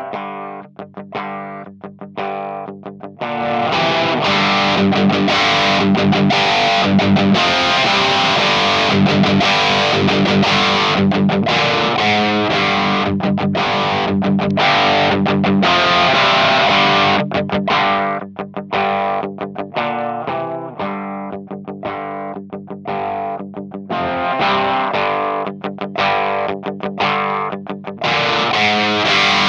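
Electric guitar played through the FAME LEF-324 Plexion overdrive/boost pedal, distorted riffs and chords. It is lighter and choppier at first, then jumps to a louder, fuller, brighter overdriven sound about three seconds in.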